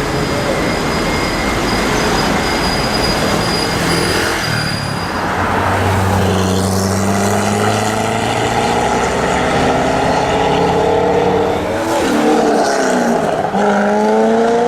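Loud drag-prepared Corvette V8 engine running, its revs held and then dropping and climbing again near the end.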